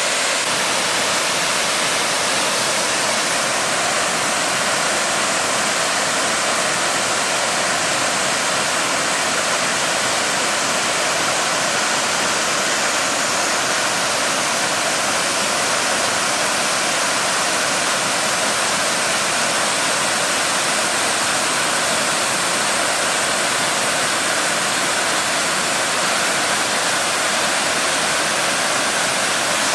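Harajiri Falls, a broad curtain waterfall, pouring in a steady, unchanging rush of falling water, more hiss than deep rumble.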